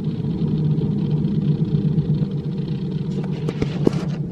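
Light aircraft's engine and propeller running steadily at low power, heard inside the cabin as a steady rumble while the plane taxis after landing. A few sharp clicks come near the end.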